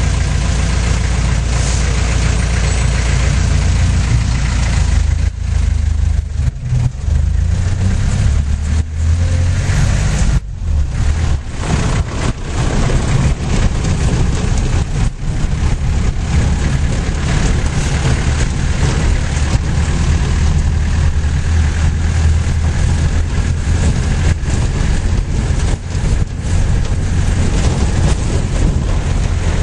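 Vehicle engine running with a steady low drone, heard from inside the cab, mixed with road and wind noise from driving over an unpaved road.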